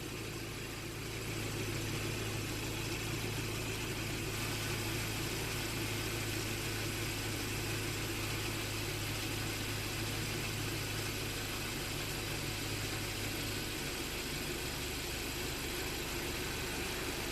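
2012 Kia Optima idling with its air conditioning running on max. A steady low hum in the running sound drops out about fourteen seconds in.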